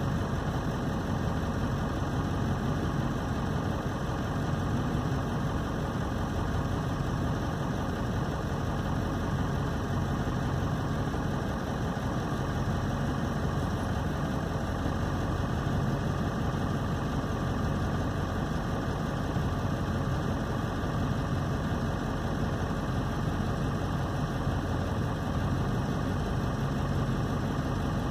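Vehicle engine idling steadily, a low, even rumble heard from inside a pickup truck's cab, with no revving or change.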